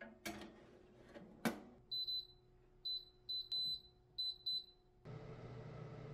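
A baking tray slid onto an electric oven's rack with a few knocks and a sharp clack, then a string of about seven short, high electronic beeps as the oven's control panel is set to 180 °C. About five seconds in, a steady low hum of the oven running takes over.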